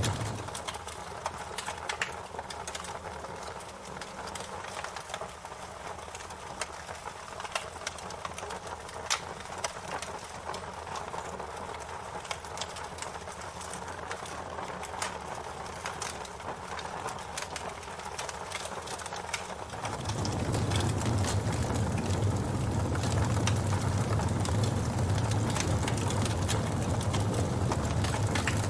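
Wood fire crackling, with frequent sharp pops over a steady hiss. A low rumble drops out just after the start and returns about twenty seconds in, when the fire becomes louder.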